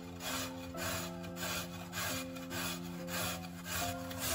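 A raw potato being grated on a metal box grater: a steady rhythm of rasping strokes, a little over two a second.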